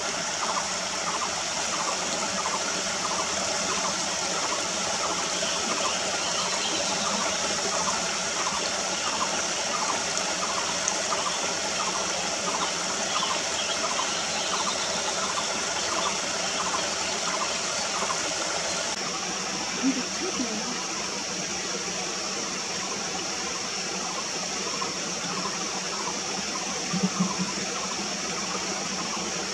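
Shallow stream running over stones: a steady rush of water. Through the first two-thirds a faint call repeats about twice a second, and two brief low sounds come later.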